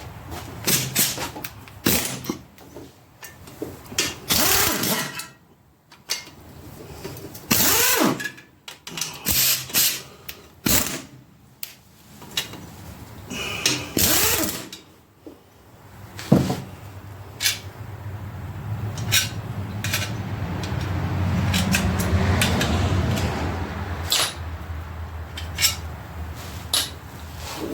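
Tools and metal parts clanking and clicking during the teardown of a small block Chevy 350 engine. Over the second half a steady low mechanical hum swells and fades, with scattered clicks on top.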